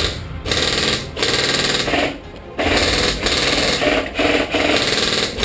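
Airsoft rifles firing on full auto in long bursts, a rapid rattle that breaks off and starts again several times.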